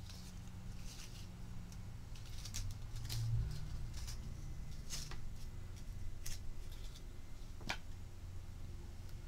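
Handmade paper flowers, made from book and magazine pages, rustling and clicking as they are handled and turned over on a table: scattered short crinkles and taps, roughly one a second, over a low steady hum.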